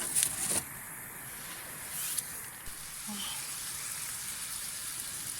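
Tsukune (chicken meatballs) sizzling as they fry over a flame, a steady frying hiss with a few sharp crackles in the first half-second and again about two seconds in.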